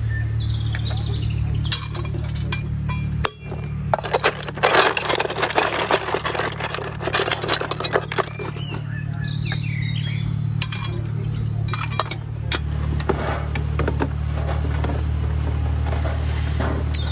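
Metallic clinks and scrapes of coal lumps and fire tongs at a model traction engine's firebox, bunched in the first half, over a steady low hum.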